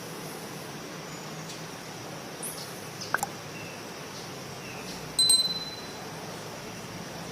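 Rainforest ambience: a steady background wash with a few short, high bird chirps and one sudden, bell-like ringing note about five seconds in that fades within a second.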